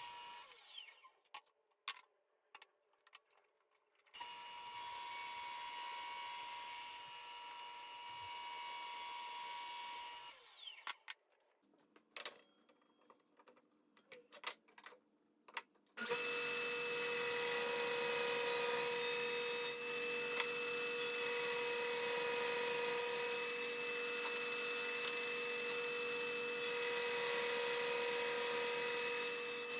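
Woodworking power tools. One runs steadily and winds down with a falling pitch just after the start and again about ten seconds in, with a few knocks in the pauses. About sixteen seconds in, a louder power tool with a lower steady tone starts and runs to the end.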